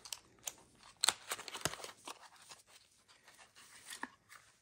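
Handling noises from wheel-hub parts being moved about on a workbench: a few sharp clicks, the loudest about a second in, with light rustling between them.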